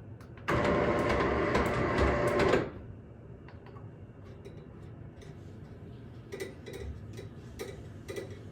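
Roller shutter's electric motor running for about two seconds, driving the shutter while its upper limit is set, then stopping suddenly. Light clicks and taps follow.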